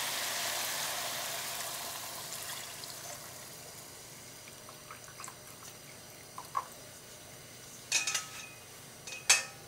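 Beef broth poured from a metal bowl into a hot frying pan of stir-fried beef and radish, splashing and hissing, fading out over the first three to four seconds as the pan fills. A few light knocks and clicks follow later, the sharpest about nine seconds in.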